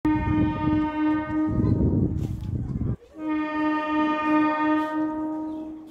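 MEMU electric train horn sounding two long, steady blasts of about three seconds each: the first breaks off suddenly, the second fades near the end. A low rumble runs under the first blast.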